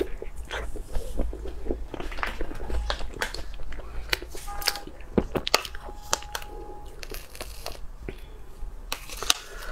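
A person biting and chewing food, with irregular crunches and sharp clicks.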